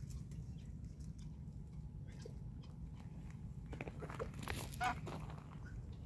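Scattered light clicks and taps from poultry on gravel over a low steady rumble. About four and a half seconds in comes one short warbling bird call, the loudest sound.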